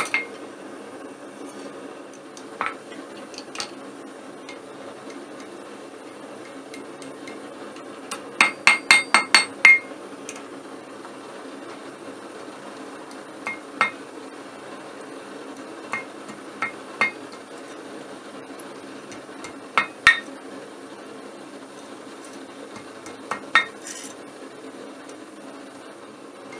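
Hand hammer striking mild steel bar on an anvil. A quick run of about six ringing blows comes around eight to ten seconds in, with scattered single blows elsewhere, over a steady low rumble.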